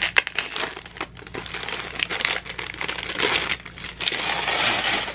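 Christmas wrapping paper being torn and crinkled by hand as a small wrapped gift is opened, with many small crackles and a longer, louder rip near the end.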